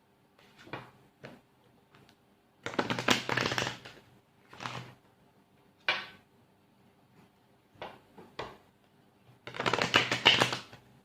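A tarot deck being shuffled by hand: two longer riffling bursts about three seconds and ten seconds in, with shorter card snaps and light taps between.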